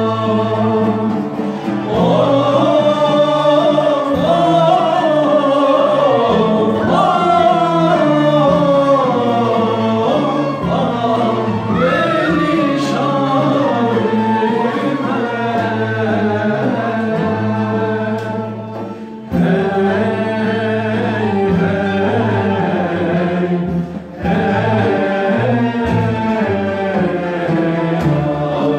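Turkish classical music ensemble performing a kâr in makam nihavend: a choir of male and female voices sings the melody in unison, accompanied by ney, kanun, cello, darbuka and frame drum. The singing dips briefly twice, about 18 and 24 seconds in.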